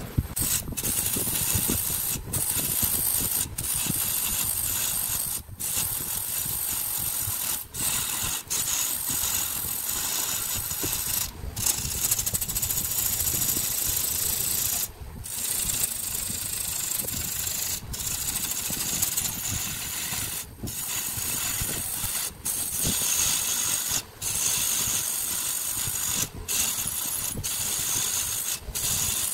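Wood lathe turning a large wooden cylinder while a gouge cuts it: a steady hiss of cutting over the lathe's rumble, broken by short breaks every second or two.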